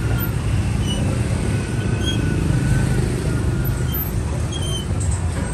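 Street traffic: vehicle engines running close by as a steady low rumble.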